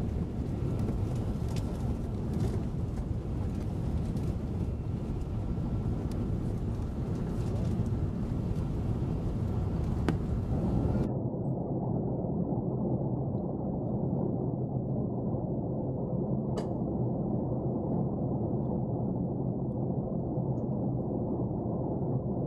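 Steady cabin roar of an Airbus A380 in its climb, heard at a window seat: engine and airflow noise with a faint steady whine. About halfway through, the sound suddenly turns duller as its hiss drops away, and the low roar carries on.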